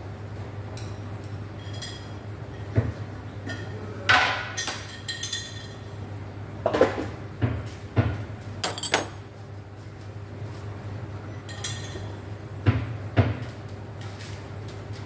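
Scattered clinks and knocks of cups, glassware and utensils being handled on a coffee bar, over a steady low hum.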